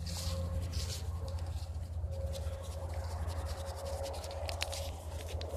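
Leaves and dry grass brushing and scratching against a handheld phone, with scattered small clicks over a steady low rumble.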